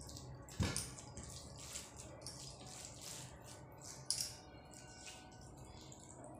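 Rice and chicken curry being eaten by hand: fingers squelching and mixing the wet rice on the plate, and wet mouth sounds while chewing. Two sharp clicks stand out, about half a second in and about four seconds in.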